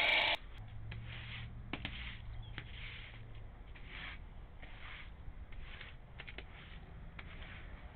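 A power tool's motor running loudly, then cutting off abruptly about a third of a second in. After that there is only a faint low hum and soft rustling, recurring about once a second.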